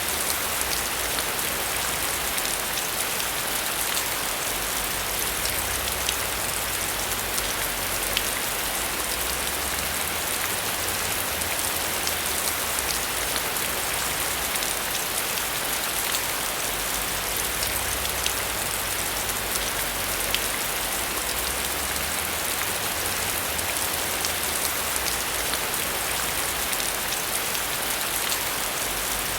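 Heavy rain falling steadily, with many sharp ticks of single drops striking a surface.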